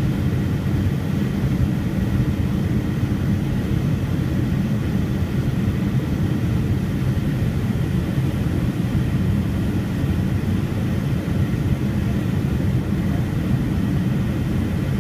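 Jet airliner's engines and rushing airflow heard from inside the passenger cabin during descent: a steady, even low rumble with a faint high steady whine.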